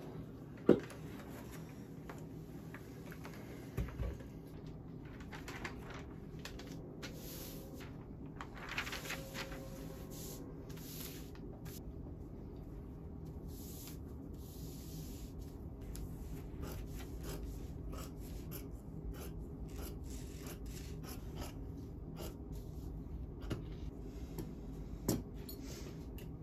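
A paper sewing pattern and cotton fabric being handled and smoothed flat on a cutting table: paper rustling and rubbing, with a few sharp knocks as things are set down. The loudest knock comes about a second in.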